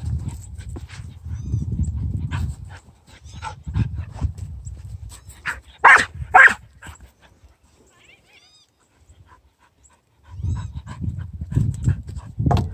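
Australian cattle dog barking twice in quick succession about six seconds in, mid-play. Low rumbling comes and goes before the barks and returns near the end, with a few seconds of quiet in between.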